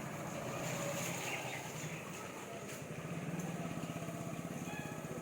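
A vehicle engine running steadily, a low hum with a rapid, even throb.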